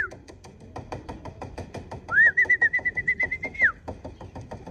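A person's warbling trill whistle, used to call racing pigeons down to the loft. One whistle trails off right at the start; a second comes about two seconds in, rising, held with a fast flutter for about a second and a half, then falling away. Light clicks run underneath.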